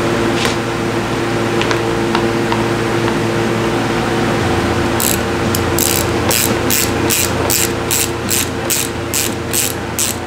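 Ratchet wrench clicking in short even strokes, a little over two clicks a second, starting about halfway in as a bolt on a pit bike's loose, rattling number plate is tightened. A steady hum runs underneath.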